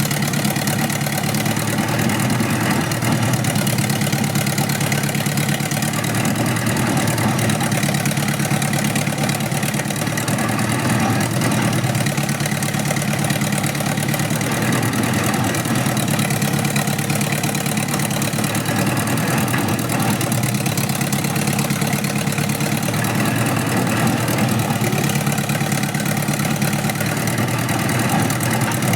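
An engine running steadily, without revving or changing speed.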